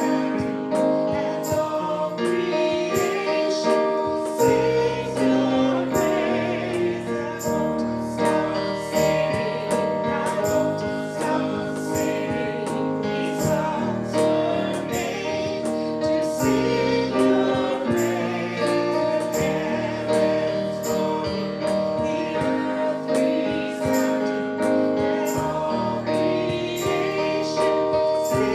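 Worship song in a church service: several voices singing together over instrumental accompaniment with a steady beat.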